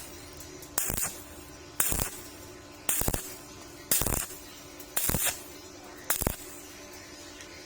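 Stick-welding arc on thin 1.2 mm steel square pipe, struck and broken again in short crackling bursts about once a second, six times: an on-off stitch technique for thin metal.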